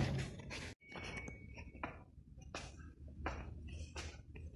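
Footsteps of a person walking up hard stone stairs, short sharp steps at an even pace of about one and a half a second, over a low hum in the station.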